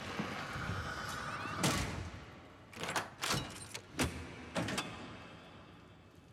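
A series of sharp knocks and bangs, about five, the first and loudest about a second and a half in and the rest between three and five seconds in, over a steady hiss that fades quieter near the end.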